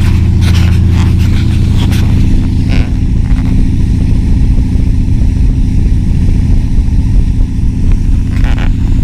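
Boat engine running steadily at low speed, a loud, even low engine note.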